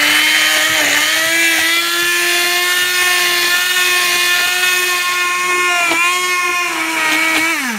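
Hand-held immersion blender running in a pot of cooked pumpkin and stock, puréeing it into soup: a loud, steady motor whine that rises a little in pitch over the first second or two. Near the end it is switched off and the whine falls away.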